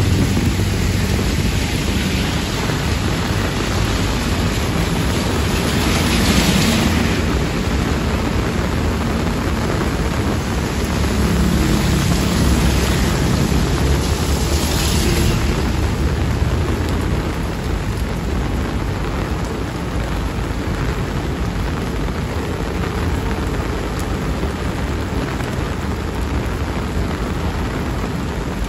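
Heavy rain falling steadily on a wet paved lane. Motorbikes pass twice, about six seconds in and again around fifteen seconds in, their tyres hissing through the water over a low engine hum. The rain eases slightly in the second half.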